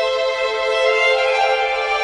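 Background music: a bowed string instrument playing long held notes, moving to a new note about a second in.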